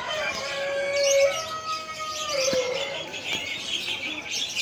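Many caged birds chirping and twittering over one another. A long, steady pitched tone is held over the first half and drops away at its end.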